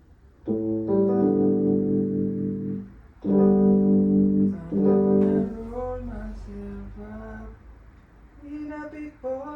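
Live band rehearsal music: three long held chords, then quieter, wavering single notes and a short phrase near the end.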